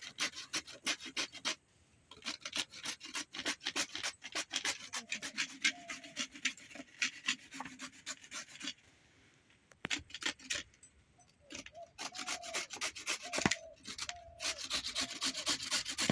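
Raw green papaya being grated on a hand grater: a fast run of rasping strokes, several a second, broken by a few short pauses.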